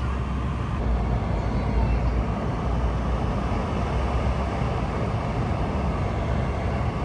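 Steady cabin noise of a Boeing 717-200 airliner in flight: a deep rumble of engines and airflow with a hiss over it.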